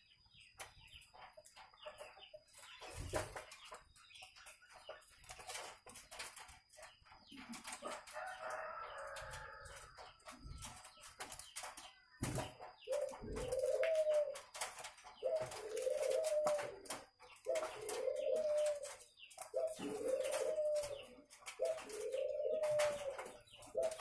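Caged puter doves (collared doves) cooing: from about halfway through, a regular run of coos, each one rising and falling in pitch, roughly every one and a half seconds. Before the cooing starts there are only scattered clicks and a soft rustle.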